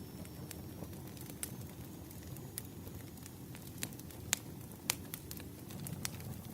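Campfire burning: a low steady rumble of flames with irregular sharp crackles and pops from the burning wood, two louder pops past the middle.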